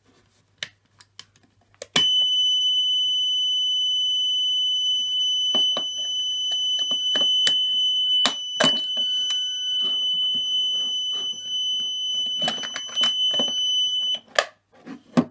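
Emergency door alarm's buzzer sounding on test, one steady high-pitched tone. It starts abruptly about two seconds in and cuts off shortly before the end. Clicks and handling knocks from the unit come before, during and after it.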